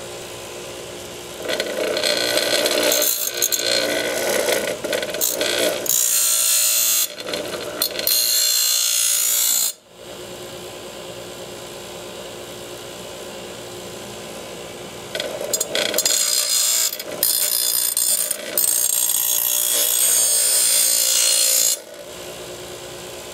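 Delta 6-inch bench grinder running with a steady hum while a steel lawn mower blade is sharpened against its wheel. There are two long spells of harsh grinding, each several seconds, with the motor running alone in between.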